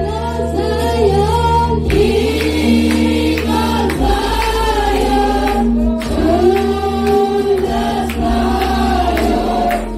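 Choir singing a gospel song over a steady low instrumental accompaniment.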